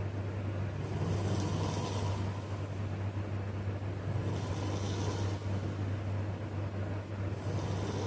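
A sleeping person snoring and breathing slowly, three breaths about three and a half seconds apart, over a steady low drone.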